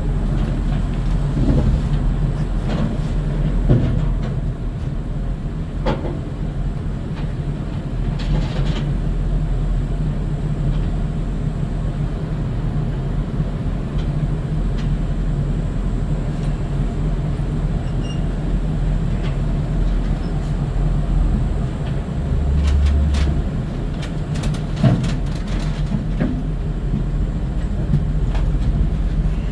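A large vehicle's engine idling with a steady low hum, with scattered clicks and knocks over it and a brief deeper swell about two thirds of the way through.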